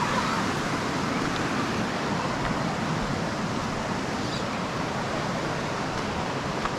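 Steady rush of flowing water from a nearby cascade or waterfall, an even hiss without break.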